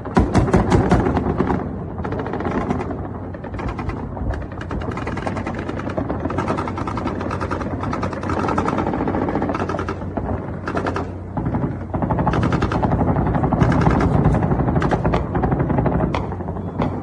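Anti-aircraft guns firing long, rapid bursts of automatic fire, the shots coming in quick succession and overlapping. The fire is heaviest just after the start and again in the later part.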